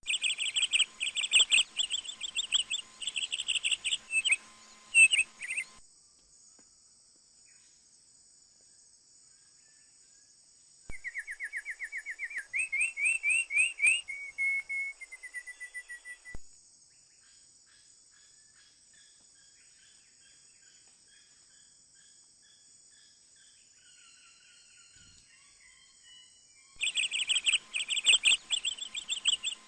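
Bird calls: rapid runs of sharp chirps in three stretches that start and stop abruptly, the middle one a fast series of rising notes ending in a short trill, with faint scattered calls in between. A steady high-pitched insect drone runs underneath throughout.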